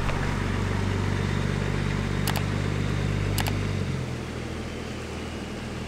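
Pickup truck engine running steadily, its hum dropping lower about four seconds in. Two sharp clicks come about a second apart near the middle.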